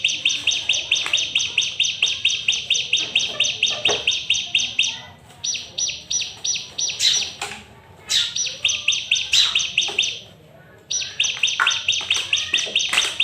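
Ciblek (prinia) singing its fast chattering song: long runs of rapid, evenly repeated high chip notes, about eight a second, broken by three short pauses. A few sharp clicks come in among the notes.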